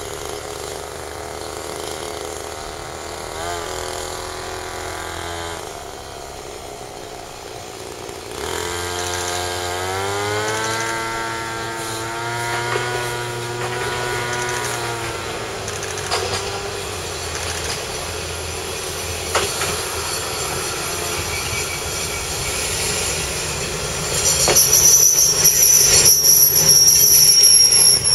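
Diesel railcar わ89-314 approaching along the track, its diesel engine note climbing and then holding. In the last few seconds it gets louder with a high squeal from the wheels and brakes as it pulls into the platform.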